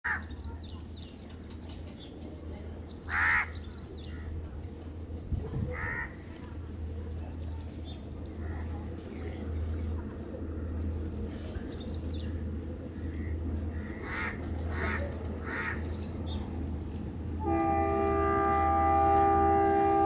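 WDP3A ALCO diesel locomotive heard from afar as a steady low engine rumble, with crows cawing a few times. About three-quarters of the way through, the locomotive's horn starts a long steady blast that is the loudest sound.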